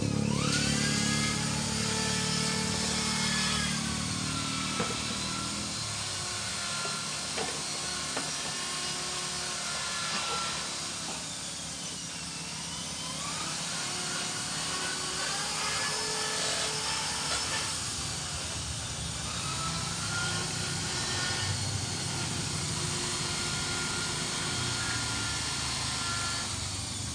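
Small engines or motors running, their pitch rising, holding and falling again, with a few light clicks in between.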